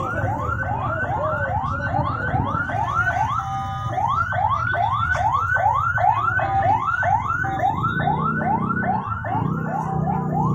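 Vehicle electronic alarm siren sounding a fast, repeating rising whoop, about three sweeps a second.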